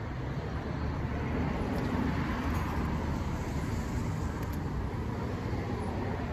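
Street traffic: the steady road noise of passing cars, swelling a little over the first two seconds.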